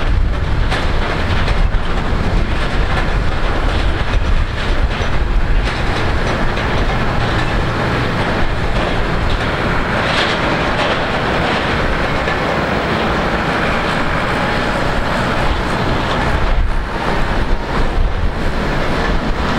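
Twin rear-mounted turbofan engines of a business jet running at taxi power: a steady jet rumble and hiss that grows brighter about halfway through as the jet turns side-on.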